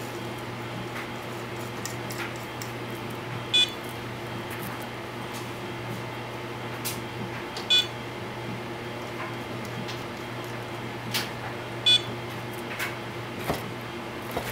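Short electronic beep from a powered ImmersionRC Vortex 230 Mojo FPV quad, repeating about every four seconds, three times. Small plastic clicks come between the beeps as propellers are handled and fitted, over a steady low hum.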